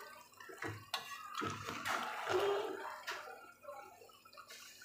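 Metal spatula stirring thick, wet semolina halwa in an aluminium pot: several knocks and scrapes against the pot with a wet squelching of the mixture. The halwa is still at the early roasting stage in ghee, not yet golden.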